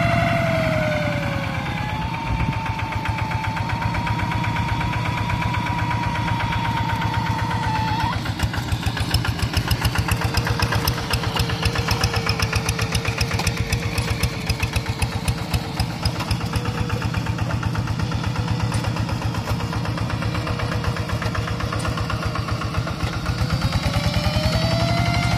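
Single-cylinder diesel engines of two-wheel hand tractors running under load while working mud, a fast steady chugging. The pitch falls about a second in and rises again near the end.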